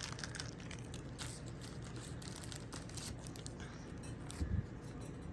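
Faint rustling and small clicks of trading cards and plastic packaging being handled, over a steady low hum, with one short low thump about four and a half seconds in.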